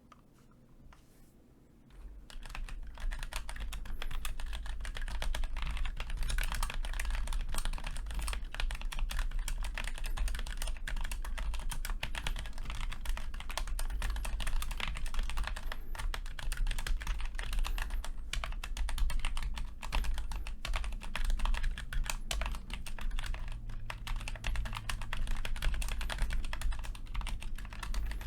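Fast, continuous typing on a mechanical keyboard with Gateron Red linear switches fitted with very heavy 850 g springs. A few scattered keystrokes give way about two seconds in to a dense, rapid stream of key clicks with a deep thud under them.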